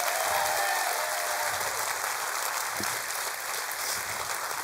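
Large conference audience applauding, with a few whoops near the start; the applause slowly dies down.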